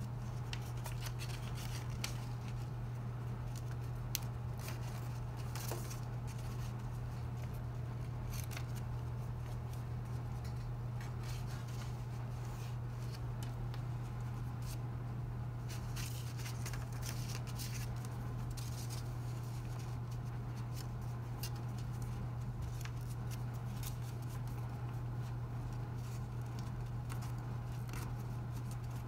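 Paper crinkling and rustling in scattered crisp clicks as sheets of origami paper are creased, folded and slid together by hand, over a steady low hum.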